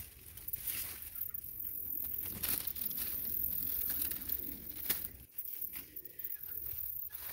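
Bird calling in the background, low-pitched and cooing, with leaves and vines rustling and brushing close by.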